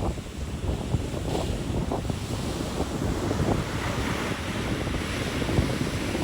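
Ocean surf washing on a beach, with wind buffeting the microphone as a gusty low rumble. The hiss of a breaking wave swells about four seconds in.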